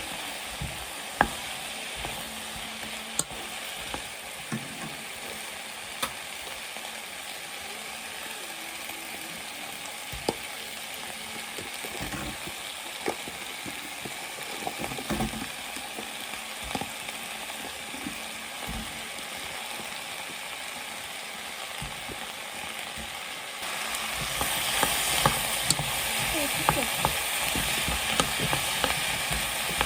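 Food sizzling and frying in a pan, stirred with a utensil that clicks against the pan now and then. The sizzle gets louder about three-quarters of the way through.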